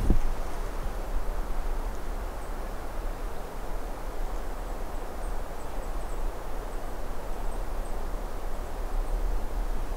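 Steady outdoor background noise, mostly a low wind rumble on the microphone, with a brief click at the very start and a few faint high ticks scattered through.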